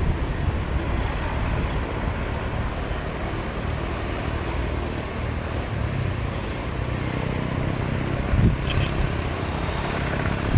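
Jet engines of a Garuda Indonesia Airbus A330 on short final and landing, a steady rushing rumble with a brief louder swell near the end.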